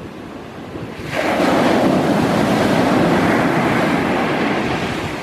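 A large sea wave breaking on the shore: a rush of surf surges in about a second in, stays loud for a few seconds, then slowly dies away.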